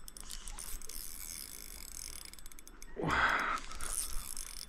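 Banax Hades Pro 2500DH spinning reel clicking and ratcheting while a hooked fish is played on the line. A short, louder rushing noise comes about three seconds in.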